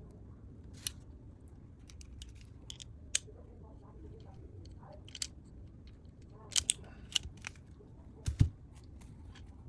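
Hand tools working on electrical wire: a series of scattered sharp clicks and snips, like cutting and crimping, with a heavier clunk about eight seconds in.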